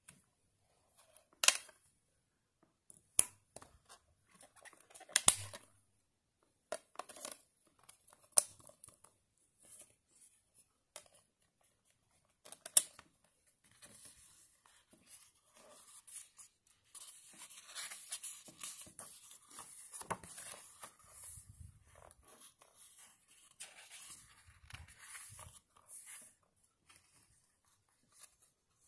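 Handling noise from a mediabook: a few sharp clicks and taps of fingers on the clear plastic disc tray holding the discs, then a longer stretch of paper rustling and brushing as the booklet is opened and its pages handled.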